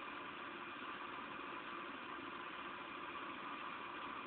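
Steady rain falling during a thunderstorm, an even hiss with no thunder.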